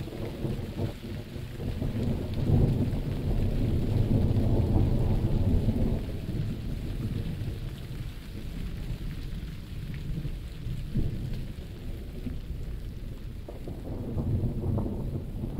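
Thunderstorm: steady rain with rolling thunder. The rumble swells about two seconds in, eases off after about six seconds, and builds again near the end.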